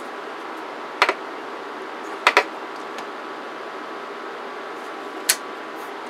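Steady whirr of an electronics cooling fan with a faint hum. It is broken by sharp clicks about a second in, a quick double click just after two seconds, and another click near five seconds.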